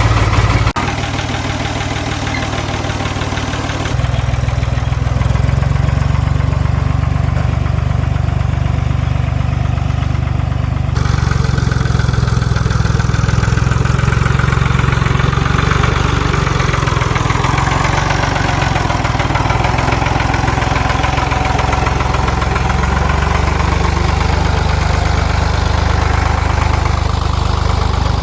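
Pickup truck engine running steadily near idle, a low even hum that shifts abruptly in tone about 4 and 11 seconds in.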